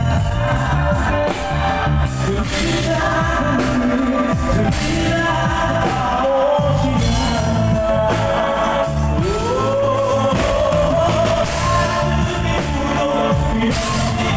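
A male singer singing into a microphone with a live band of drums and guitar, loudly amplified through the stage PA.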